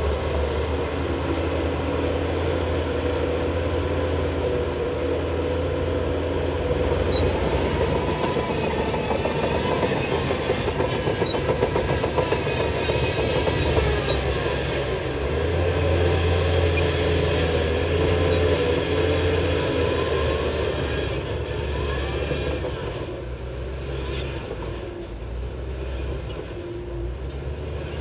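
Shantui crawler bulldozer working: the diesel engine runs steadily with a metallic clattering of the tracks, dropping in level for a few seconds near the end before picking up again.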